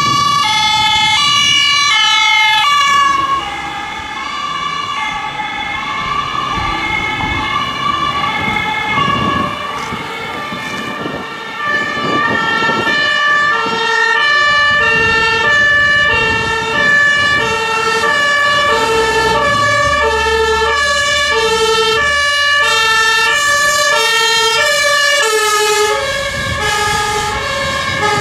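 Two German two-tone emergency-vehicle sirens (Martinshorn) on an ambulance and an emergency doctor's car, each alternating between two notes. One siren dominates for the first three seconds; after that the two sound together out of step at different pitches.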